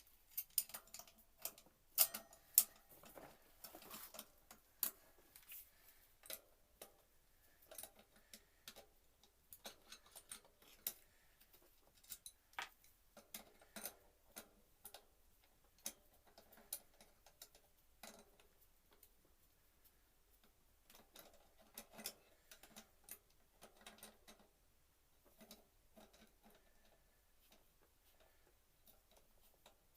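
Irregular sharp metallic clicks and knocks of hand tools and hub parts as the axle is worked out of a mountain bike rear hub. The clicks come in clusters, busiest near the start and again about two-thirds of the way through.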